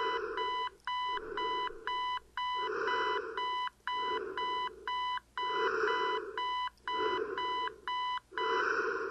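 Digital clock radio alarm beeping, a steady electronic beep about twice a second, which stops near the end as the alarm is switched off. A low rushing swell comes and goes about every second and a half alongside it.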